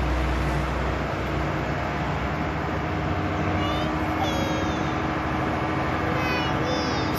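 Steady rushing noise of a fire hose jet spraying, with a fire engine's pump engine running under it. A few brief high chirps come about four and six seconds in.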